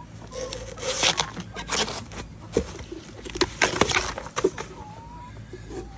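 A blade cutting and scraping into a fresh bamboo shoot in an irregular series of sharp crunching and tearing strokes.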